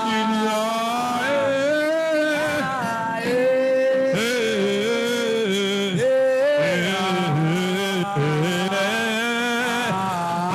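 Wordless worship chanting: a voice sings long held notes that bend and waver in pitch, without a break.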